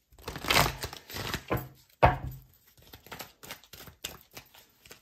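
A deck of tarot cards being shuffled by hand: a rustling rush of cards in the first second and a half, a sharp slap about two seconds in, then a run of quick light taps and clicks.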